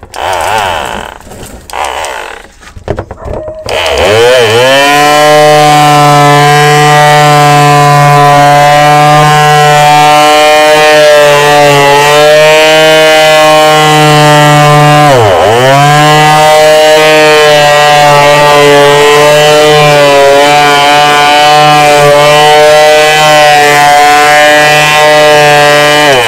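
Yojimbo 300-watt electric finishing palm sander running on a plywood board: a steady, loud motor hum. After a few short sounds it spins up about four seconds in, dips sharply in pitch once about halfway through and recovers, and cuts off at the very end.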